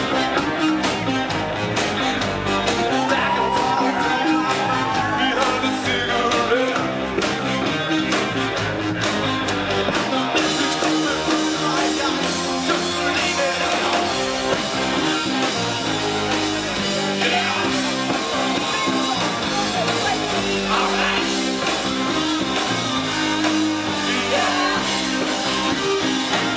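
Live indie rock band playing a song: electric guitar, bass and drums keeping a steady beat, with a voice singing over it.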